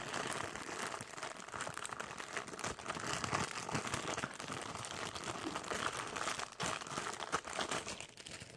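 Plastic wrapping crinkling and rustling as it is pulled off and handled, with irregular small crackles and snaps that die away near the end.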